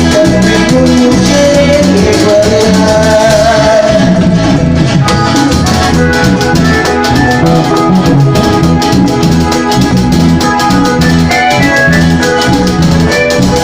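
Latin dance music played by a band: a steady beat of drums and shakers under melodic instruments.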